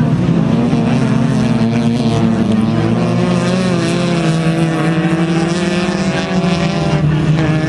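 Several small racing car engines running at high revs together, their notes overlapping and rising and falling in pitch as the cars accelerate and lift through the corner.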